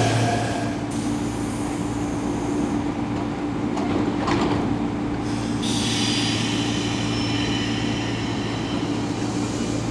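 Electric commuter train at a station platform, its electrical equipment giving a steady low hum throughout. A higher whine fades out about a second in and comes back around six seconds in, with a short sharp click about four seconds in.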